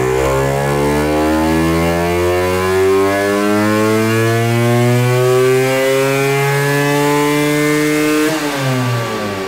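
Vespa PX with a 265 cc Quattrini two-stroke single-cylinder engine at full throttle on a roller dyno, its pitch rising steadily as it pulls from about 3,700 to nearly 10,000 rpm. About eight seconds in the throttle closes and the revs fall away.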